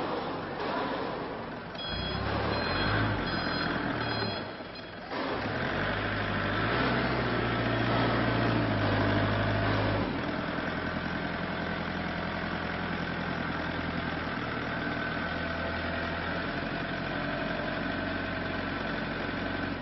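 Lonking FD30 diesel forklift engine running, louder and higher for a few seconds in the middle, then settling to a steady idle. A short run of reversing beeps sounds about two to four seconds in.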